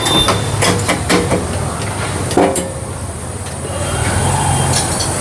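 Steady low rumble of road traffic, with scattered short clicks and knocks over it.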